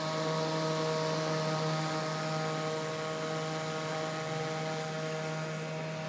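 Delta 120 mm 12 V dual-ball-bearing brushless computer fan running: a steady rush of air over a low hum, with several steady whining tones from the motor and blades.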